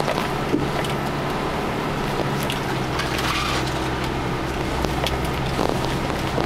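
4x4 engine running steadily, heard from inside the cabin as the vehicle rolls slowly over a rutted dirt track, with scattered knocks and rattles from the bumps. The low engine drone thickens a little about three seconds in.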